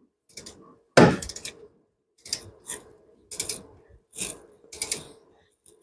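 Ratchet head of a click-type torque wrench on an extension clicking in about eight short strokes as it tightens an alternator mounting bolt toward 40 ft-lb. The loudest stroke comes about a second in.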